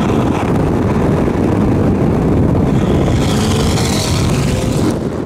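A supercar's engine running loud, with a hissing rush joining in about three seconds in and stopping just before the end.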